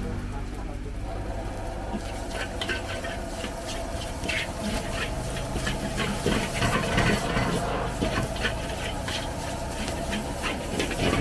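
Fried rice being stir-fried in a steel wok: a metal spatula scrapes and clanks against the wok in rapid, irregular strokes over a sizzle, starting about two seconds in, with a steady low hum underneath.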